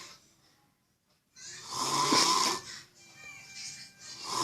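A person snoring loudly in long, rasping snores. One full snore comes about a second and a half in, after a near-silent pause, and the next begins near the end.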